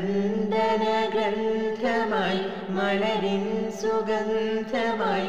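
A teenage boy and girl singing a Malayalam devotional prayer song together, drawing out long held notes.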